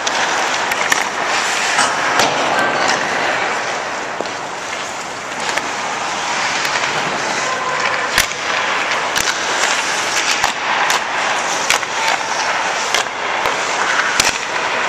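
Ice skate blades scraping and carving on rink ice, with sharp cracks of hockey sticks striking pucks and pucks hitting the goalie's pads and the boards scattered throughout.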